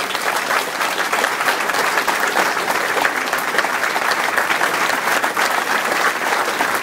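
A crowd of guests applauding: dense, steady clapping.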